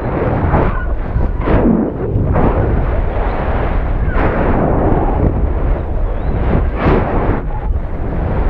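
Wind buffeting the microphone of a high-altitude balloon payload falling under its parachute after the balloon burst: a loud, unbroken rushing noise that swells and drops irregularly.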